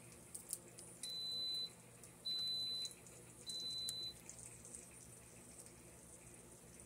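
Instant Pot electric pressure cooker beeping three times, each a steady high beep about half a second long, about a second apart. The beeps mark the start of the programmed 45-minute pressure cook, as the display switches to "On" and the pot begins to heat.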